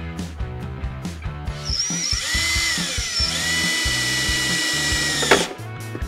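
A power drill driving screws to fasten a plywood form station to the canoe strongback. It starts about a second and a half in; its whine rises and falls, holds steady, then cuts off suddenly after about four seconds. Background music with a steady beat plays throughout.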